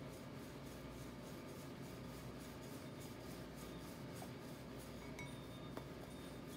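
Faint rubbing and light taps as a knife blade is pressed around the edge of a cheese-stuffed paratha on a marble board, with a few small clicks in the last couple of seconds, over a steady low hum.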